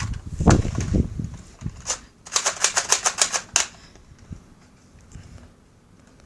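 Nerf blaster being handled and worked: a quick, even run of about ten sharp plastic clicks, roughly eight a second, lasting just over a second.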